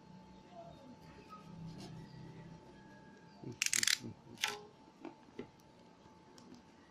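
Phone box packaging being handled and opened: two short scraping, rustling bursts about halfway through, then a few light clicks.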